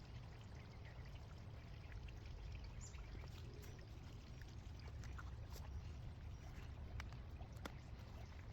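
Loose garden soil crumbling and trickling as potatoes are dug, with a scattering of small clicks and a low steady rumble underneath.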